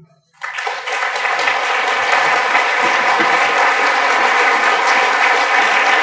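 Audience applauding: dense, steady clapping that starts about half a second in.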